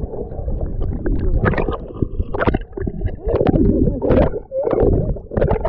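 Sea water churning and splashing in the surf close to the microphone, as a small boat tips over in the waves.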